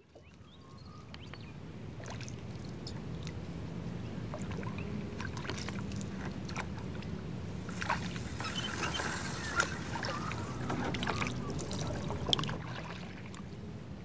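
A canoe on water: water sloshing and trickling with scattered light knocks, fading in from silence over the first couple of seconds.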